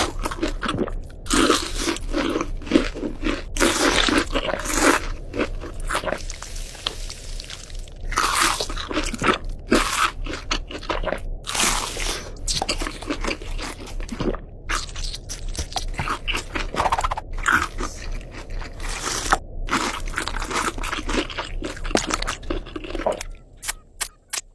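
Crispy fried chicken being bitten and chewed: irregular crunches, one after another, thinning out into a few single crunches near the end.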